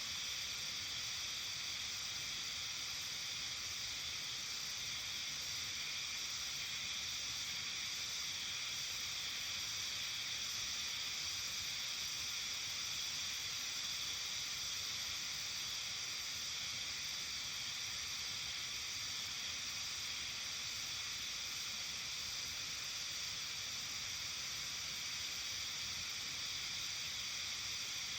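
Steady high-pitched hiss of an early-summer evening nature ambience, unchanging throughout, with several faint held tones running through it.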